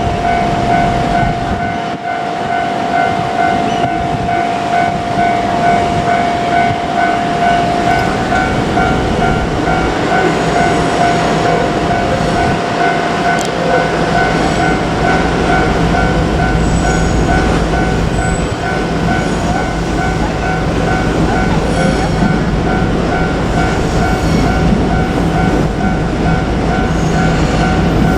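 Japanese level-crossing warning bell ringing in a rapid, even repeat while a JR Kyushu 817 series electric train approaches and runs past. The train's rumble and wheel noise build from about halfway through.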